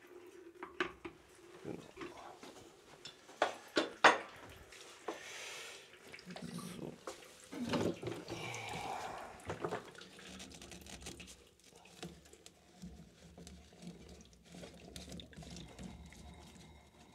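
Sharp knocks and clicks of pipe fittings being handled, the loudest about four seconds in, then water rushing and splashing out of a tap as the shut-off supply line drains, strongest about eight to ten seconds in before dying down.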